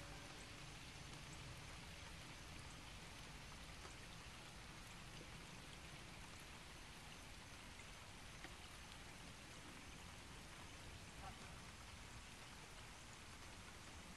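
Rain falling steadily on a pond's surface: a faint, even hiss with scattered small drop ticks.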